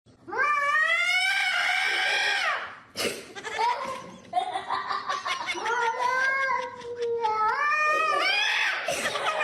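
A cat yowling in three long, drawn-out calls, each rising and then falling in pitch, the first lasting about two and a half seconds; a sharp click comes about three seconds in.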